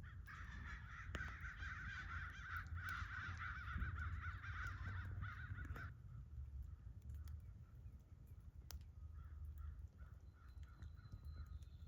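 Harsh, raspy bird-like calling that runs for about six seconds, then stops.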